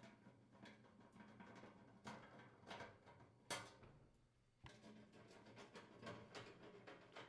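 Faint, scattered clicks and light knocks of a 1/4-inch nut driver unthreading the screws that hold a gas range's burner orifice holders to the main top, and of the small parts being handled. The loudest knock comes about halfway through.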